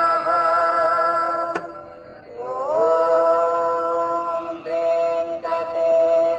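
Devotional singing on the soundtrack in long held notes. The sound fades after a click about one and a half seconds in, then comes back with an upward slide into the next held note.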